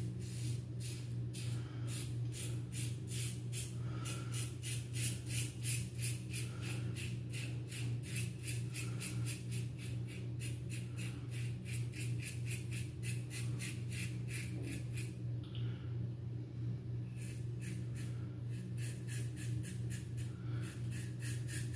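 Razor Rock Hawk V2 razor scraping lathered stubble in quick, even strokes, about three or four a second, over a steady low hum.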